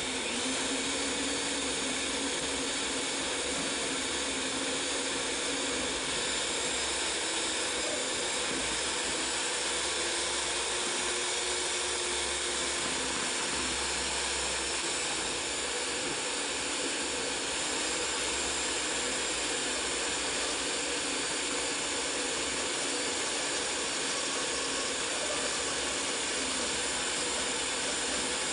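Electric stand mixer running at a steady speed, a continuous whir as its twin beaters work through thick cake batter.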